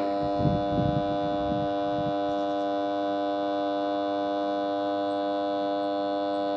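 Electric lawn mower motor burning out: a steady, loud electrical hum-whine at one fixed pitch with many overtones, with irregular low crackling in the first couple of seconds. The windings are failing and the motor is heading for a dead short.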